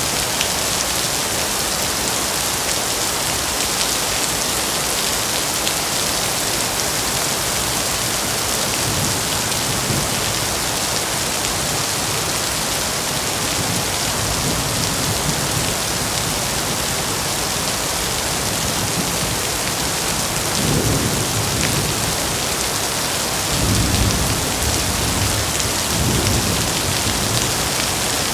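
Heavy rain falling steadily, with several low rolls of thunder; the loudest come about three quarters of the way through and again near the end.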